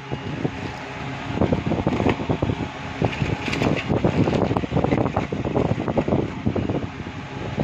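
Plastic air-column packaging and a cardboard box being handled, crinkling and rustling irregularly, over a steady rush of air on the microphone.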